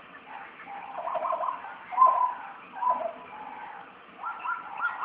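Wild animal calls: a few short separate calls, then a quick run of repeated calls near the end.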